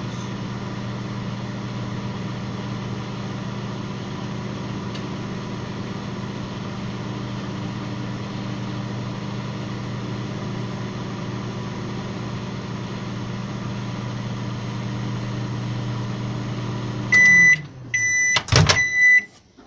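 Microwave oven running with a steady hum, which winds down about 17 seconds in. Three short high beeps follow, signalling the end of the heating cycle, with a brief click between the second and third.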